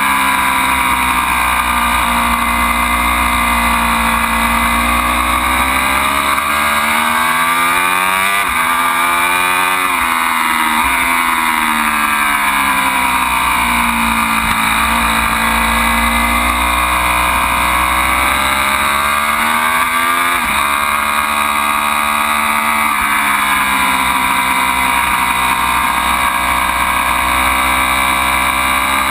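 Ducati Panigale V4's 1103 cc Desmosedici Stradale V4 engine at track pace, its pitch falling and climbing again several times as the bike slows for corners and accelerates out. A steady low rumble runs underneath.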